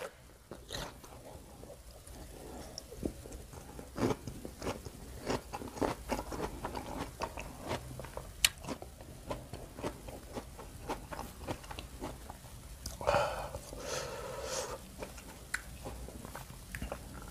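Close-up crunching and chewing of a crisp, juicy water apple (jambu air), with many short wet clicks and crunches. A short voice-like sound comes about thirteen seconds in.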